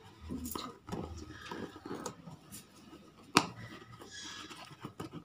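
Small cardboard shipping box being handled and pried open: cardboard scraping and rustling, with one sharp click about three and a half seconds in.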